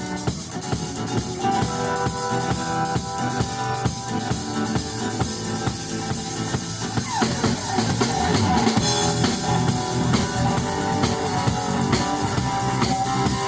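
Live rock band playing an instrumental passage: a drum kit keeps a steady beat under electric guitar.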